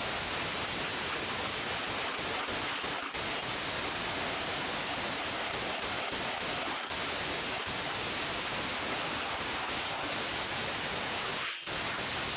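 Steady loud static hiss that cuts in suddenly and holds at an even level, dipping briefly near the end.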